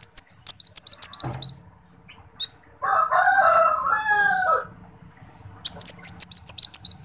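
Sunbird (kolibri wulung) calling: a fast run of about a dozen sharp, high chips, each dropping a little in pitch, given twice, at the start and again near the end. In between, a rooster crows once, lower and longer, for nearly two seconds.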